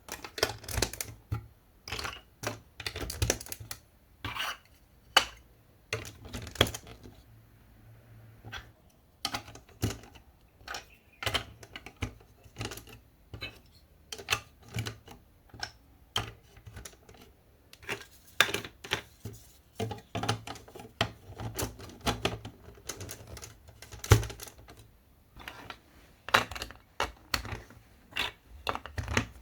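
Marble-run building pieces being handled and set in place: irregular clicks and knocks, singly and in small clusters, with short pauses between.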